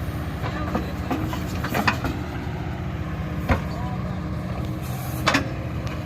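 Diesel engine of a Kubota 5502 tractor backhoe loader running steadily, with a few sharp knocks: two close together about two seconds in, one at about three and a half seconds, and one just after five seconds.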